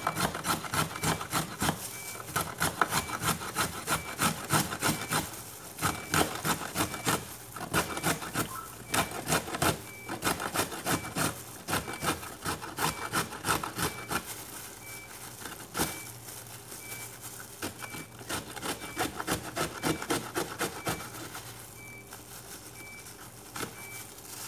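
Carrot being grated by hand on a stainless steel box grater: rapid rasping strokes, a few a second, with short pauses. The strokes grow softer near the end.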